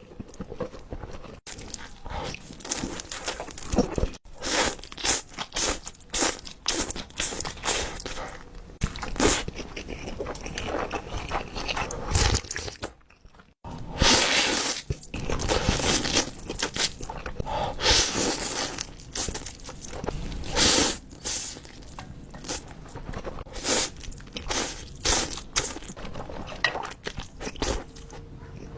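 Close-up eating sounds: crunchy food being bitten and chewed in quick, irregular crackling crunches, with a brief break about 13 seconds in.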